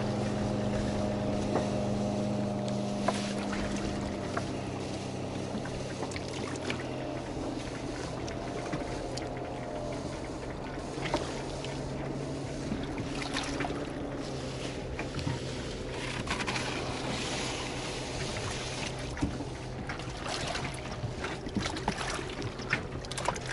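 Outboard motor running steadily in the background while a drift net is hauled aboard a boat and shaken out, with scattered splashes, knocks and rattles of net and fish against the hull.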